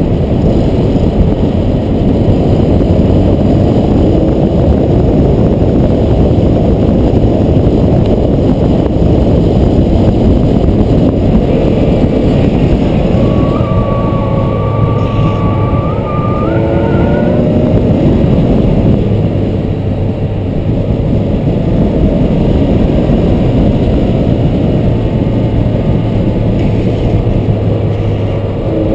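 Loud wind rush and road noise on a camera moving at speed behind a downhill longboarder, with a steady low engine hum through the second half. Around the middle, a squeal of wheels sliding in a bend lasts a few seconds and rises in pitch at its end.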